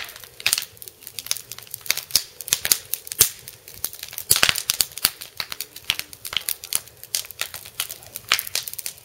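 Burning scrap wood crackling, with irregular sharp pops and snaps from the planks as they burn.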